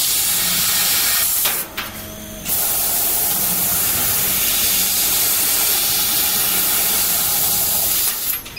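Dragon DLM-1390 CO2 laser cutting machine cutting sheet metal: a loud, steady hiss of assist gas jetting from the cutting nozzle, with a faint low hum underneath. The hiss stops for about a second near the start, then resumes, and cuts off again near the end.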